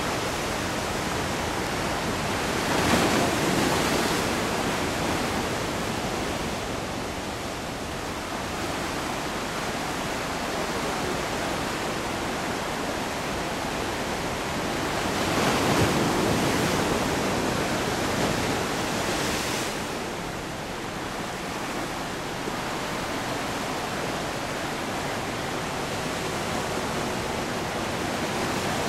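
Ocean surf breaking on a rocky shore: a steady wash of water that swells louder about three seconds in and again around the middle.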